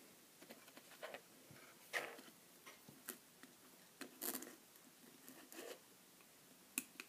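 Small Phillips screwdriver working a tiny screw in an iPhone 5's battery bracket: faint, scattered clicks and scrapes of the metal tip against the screw and phone, the sharpest about two, four and nearly seven seconds in.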